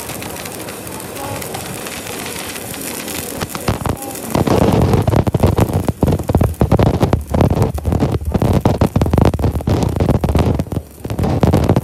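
MIG welding arc crackling and spitting as a bead is laid on a truck drive shaft joint, loud from about four seconds in, with a short break near the end. Before that, a quieter steady hiss.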